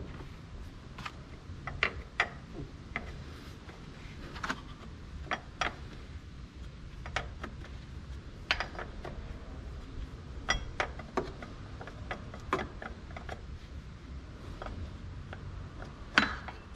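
Hand tools clicking and tapping on metal in irregular light strokes, about one or two a second, over a steady low hum; a sharper knock comes near the end.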